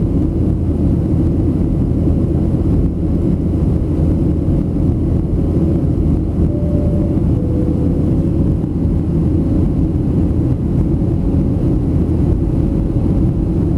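Steady cabin drone of a Boeing 737-700 in flight, heard from a window seat: the CFM56 engines and the airflow over the fuselage, deep and even, with a faint hum above it.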